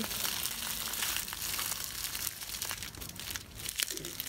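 Close rustling and crinkling with many small clicks, from hands pulling and adjusting a compression stocking on a leg.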